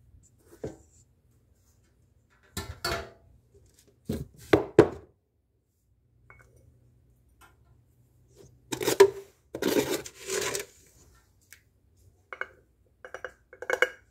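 Glass and kitchen containers knocked, clattered and slid about on a counter while coffee is put together in a big drinking glass. The sounds come in separate bursts of knocks, with a longer clattering, scraping stretch a little past the middle.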